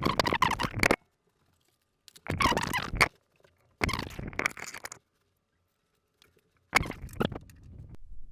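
Scratchy noises made right at a handheld microphone: rubbing, breath and mouth sounds on the mic, in four short bursts with dead silence between them.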